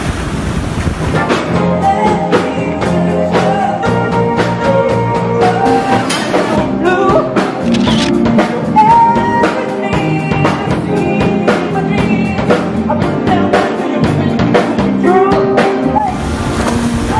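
Background music with drums keeping a steady beat under a melody.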